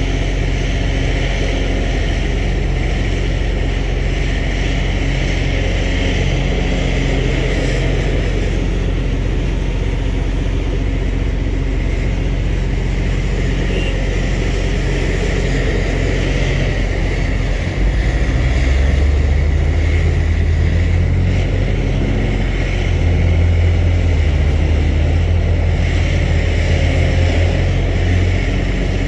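Caterpillar 349F hydraulic excavator's diesel engine, a Cat C13, running under load while digging and swinging: a steady low drone that steps up louder and higher about two-thirds of the way through, and again a few seconds later.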